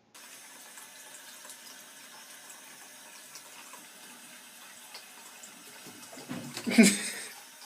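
Water running from a tap into a bathtub as a faint, steady rush. Near the end there is a short, much louder burst.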